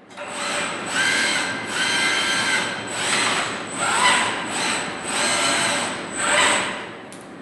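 KUKA industrial robot arm running through a series of quick moves, its servo motors and gearboxes whining in a string of short pitched bursts with a steady high whine under them; it winds down near the end.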